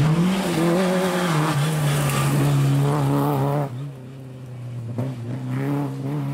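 Rally car engine at high revs, its note rising and dropping in steps as the driver shifts gears through a corner. A sharp drop about three and a half seconds in leaves a second rally car's engine, quieter, accelerating away.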